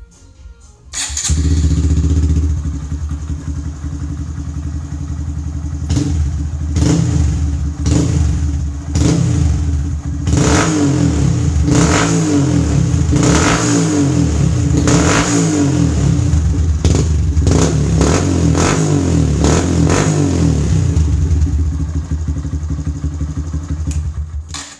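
Honda Grom's 125 cc single-cylinder four-stroke engine through a Yoshimura exhaust with the baffle removed. It starts about a second in and idles, then is revved with a dozen or so quick throttle blips, roughly one a second, before settling back to idle.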